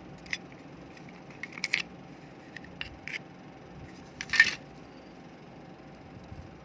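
Small hard plastic clicks and taps of opened computer-mouse parts being handled, a few scattered ones, then a louder rattling cluster about four seconds in.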